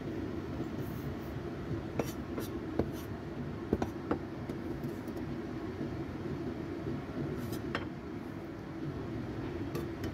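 Steel cleaver tapping and scraping on a wooden chopping board and clinking against a bowl as chopped preserved mustard greens are pushed into it: scattered sharp clicks, most of them between about two and four seconds in and a few more near the end, over a steady low hum.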